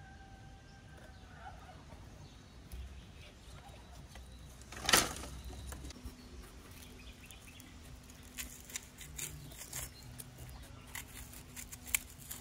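A single loud knock about five seconds in, then a run of small clicks and scrapes from knives peeling onions and eggplant on a wooden table.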